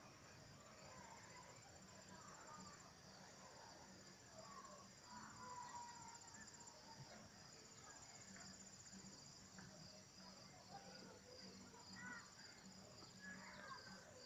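Faint outdoor chorus of insects, a steady high-pitched pulsing trill like crickets, with a few faint scattered chirps.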